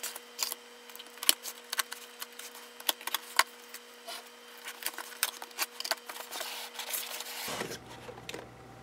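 Cardboard shipping box being handled and opened: an irregular run of sharp crackles, taps and scrapes as the flaps are pulled apart and the box is turned over.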